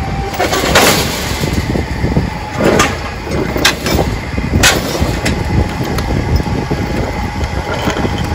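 A Ford 170 inline-six engine dragged by a cable across trailer decks, scraping and clanking, with a few sharp knocks over a steady low rumble.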